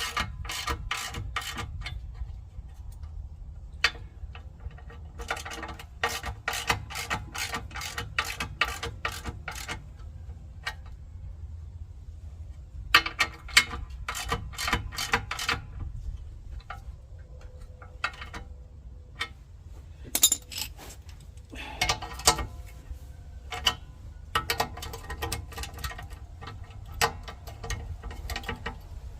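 Socket ratchet wrench clicking in quick runs of a few seconds with short pauses between them, as skid plate bolts are turned. A steady low hum sits underneath.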